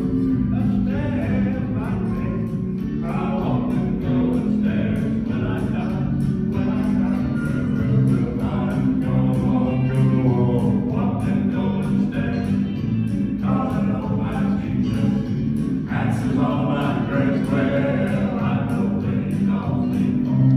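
Male gospel vocal quartet singing in harmony, over accompaniment with a steady beat.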